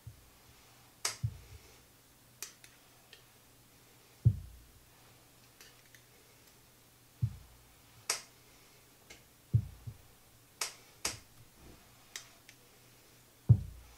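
Table knife clicking and knocking against a glass mustard jar and plate as mustard is spread on canapés: a dozen or so sharp clicks at irregular intervals, several with a dull knock.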